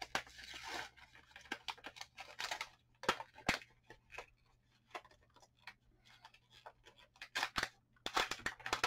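Irregular plastic clicks, crinkling and tearing as a new bottle of tacky craft glue is opened and its cap worked, with a few sharper snaps about three seconds in and a quick cluster near the end.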